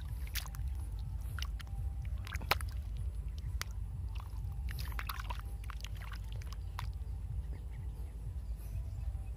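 A hand sloshing and groping in a shallow pool of muddy water and feeling into an eel burrow, with irregular small splashes and wet squelches, one sharper about two and a half seconds in, over a steady low rumble.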